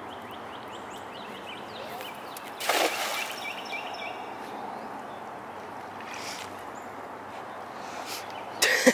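A cast net thrown into the bayou lands on the water with a splash about three seconds in. A second, louder splash comes near the end as the net is hauled back, with faint bird chirps in the background.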